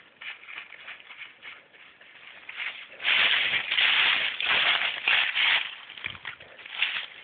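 Irregular rustling and scuffing noise, loudest for about three seconds in the middle.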